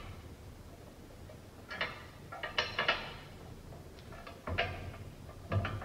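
Steel parts of a Brinly sleeve hitch plow clinking and knocking together in four short bunches as the plow beam is fitted against the plow bottom.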